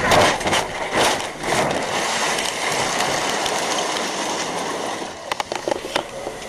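Car crash heard from inside the crashing car: a rapid series of heavy impacts and crunches in the first second and a half, then a steady rushing scrape that slowly fades as the car tumbles and slides, with a few sharp clatters of debris and glass about five seconds in.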